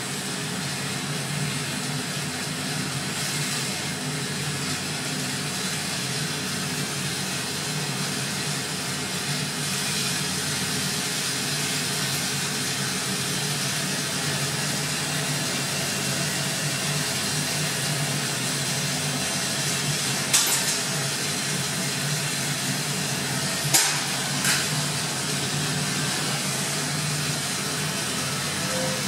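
Steady hiss of a glassblower's bench torch flame heating glass tubing, with three sharp clicks about two-thirds of the way through.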